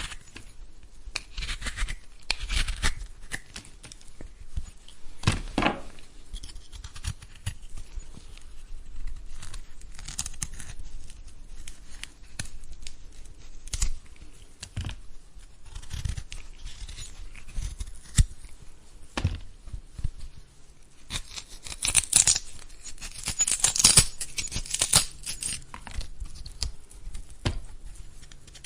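A vegetable being peeled: a run of short, irregular peeling strokes, with sharper, brighter strokes in the last third.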